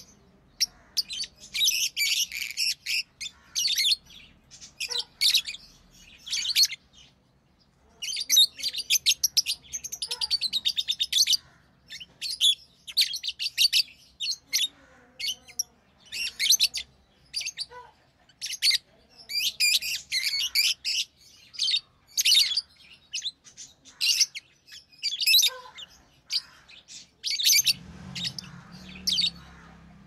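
Rosy-faced lovebirds chirping: runs of short, high, shrill chirps, with a brief pause about seven seconds in and a fast rattling run just after it.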